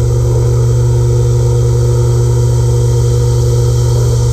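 Precision Matthews PM-30MV CNC mill running, its end mill cutting along the side of a Glock 19 steel slide: a steady low hum with a constant higher tone above it.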